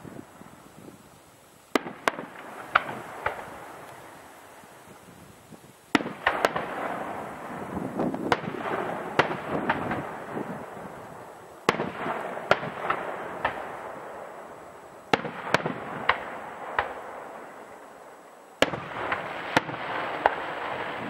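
Aerial firework shells bursting in volleys: sharp bangs every few seconds, several in quick succession in each volley, each volley trailed by a crackling hiss that slowly fades.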